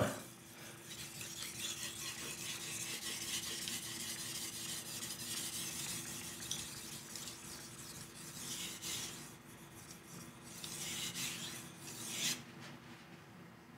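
A HAP40 steel knife blade being stroked back and forth on a wet 5000-grit whetstone with a slurry built up: a soft, steady scraping hiss that swells and eases with the strokes. The strokes stop about twelve seconds in.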